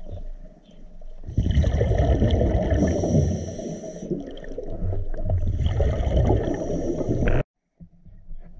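A scuba diver breathing through a regulator underwater: exhaled bubbles rumble and gurgle, and two hissing breaths are drawn through the regulator. The sound cuts off abruptly about seven seconds in.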